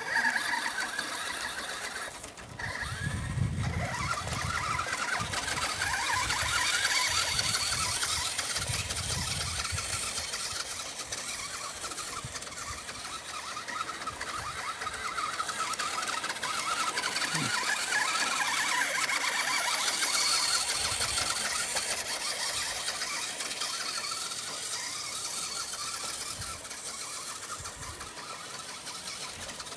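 Nikko RC Hummer toy truck's small electric motor and plastic gearbox whining as it drives over grass, the whine rising and falling in pitch as it speeds up and slows.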